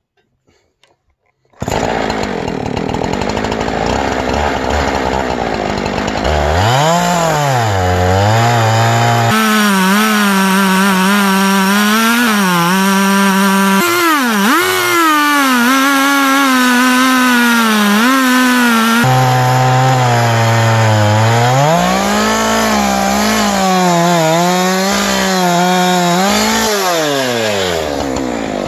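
Chainsaw in an Alaskan mill ripping a log lengthwise, starting suddenly about one and a half seconds in; the engine runs hard and its pitch sags and climbs again and again as it bogs and recovers in the cut, with abrupt jumps where clips are joined.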